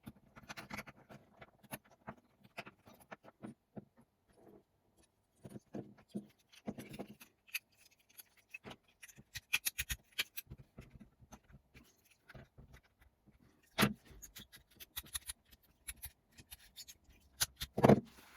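Small hard objects being handled: a string of light clicks, scrapes and scratches, with two louder knocks, one about two-thirds of the way through and one near the end.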